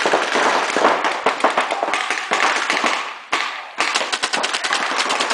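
Paintball markers firing reball rubber balls in rapid, overlapping volleys, many shots a second, echoing in a sports hall, with a brief lull about three seconds in.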